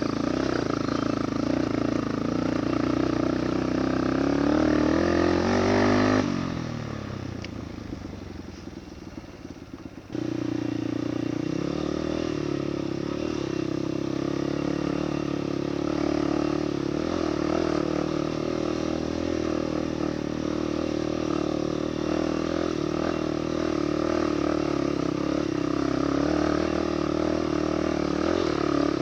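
Motorcycle engine under way on a steep road. The revs climb, then the throttle shuts about six seconds in and the engine winds down for a few seconds. Power comes back on abruptly and the engine then pulls steadily.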